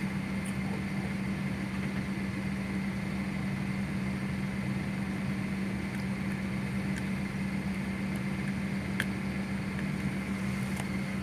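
Steady machine hum with a low, even drone, like a motor or fan running, and a few faint clicks as small plastic wire connectors are handled.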